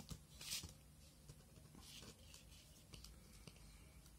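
Craft knife blade scratching through paper in a few faint short strokes, the strongest about half a second in and another around two seconds in.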